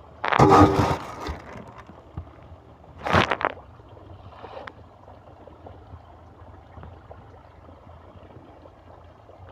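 Snakehead fish striking floating feed pellets at the pond surface: two sharp splashes, one just under a second in and another about three seconds in, with only a low steady background between.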